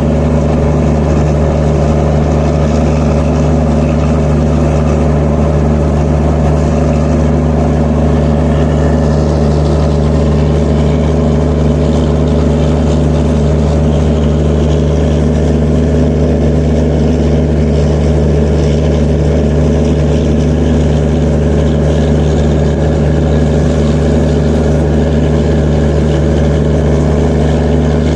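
Diesel generator sets of a passenger train's generator (power) car running steadily at constant speed: a loud, unchanging low hum.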